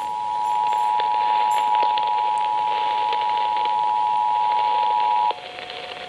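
Emergency Alert System two-tone attention signal, two steady tones near 853 and 960 Hz sounding together, heard through an AM radio's speaker over a hiss of static with scattered crackles. The tones cut off abruptly about five seconds in.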